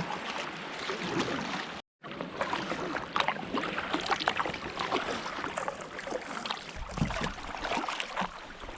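Water splashing and lapping around a fishing kayak, a busy patter of small splashes. The sound cuts out for a moment about two seconds in, and a low rumble joins near the end.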